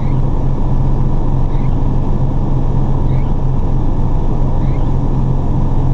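A 1992 Saulsbury Simon/Duplex fire engine's engine running at a steady idle, heard from inside the cab as a constant low hum. A faint short high chirp repeats about every second and a half.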